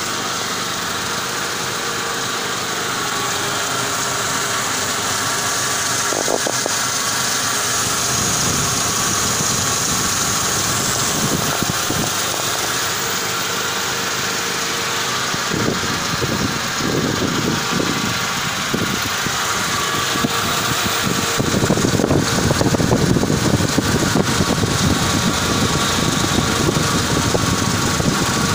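Mercedes-Benz M111 2.2-litre four-cylinder petrol engine idling steadily, heard close up in the engine bay. It grows somewhat louder in the second half as the microphone moves down near the front belt drive and pulleys.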